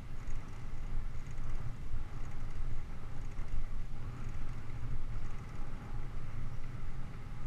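Wind buffeting the microphone of a camera mounted on a moving bicycle's handlebars: a low rumble that rises and falls unevenly.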